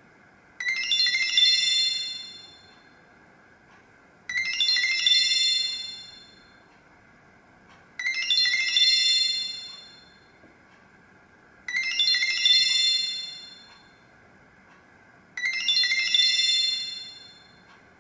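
Nokia 7310 mobile phone playing a chiming tone: a short bell-like phrase sounding five times, about every three and a half to four seconds, each one fading out before the next.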